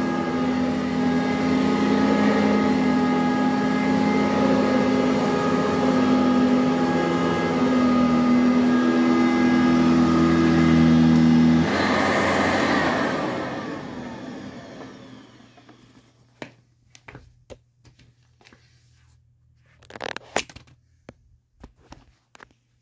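2007 Eureka High Filtration commercial upright vacuum cleaner running on carpet with a steady whine. About halfway through it is switched off and its motor spins down, falling in pitch over a few seconds. Afterwards a few light knocks and clicks of handling.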